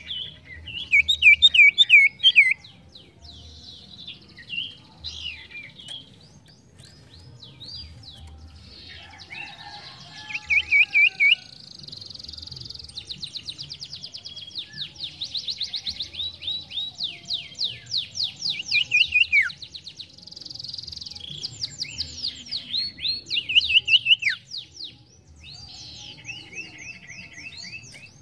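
Sirtu (sirdum) songbird singing vigorously: a long, varied song of high chirps and rapid trills, with long runs of fast repeated sweeping notes in the middle and louder bursts near the start and about two-thirds through.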